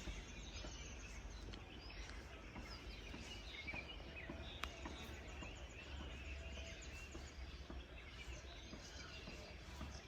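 Faint birdsong: many short chirps and quick whistles from several small birds over a low, steady background rumble, with one sharp click about halfway through.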